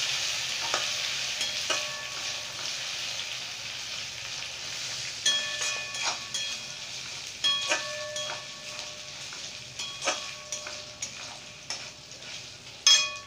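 Onions and ginger-garlic paste sizzling in hot oil in a steel kadhai, the sizzle slowly fading. Several sharp metal clanks ring out over it, the loudest near the end.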